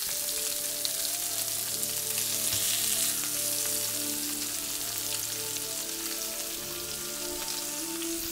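Lamb burger patties frying in a pan: a steady sizzle of hot fat.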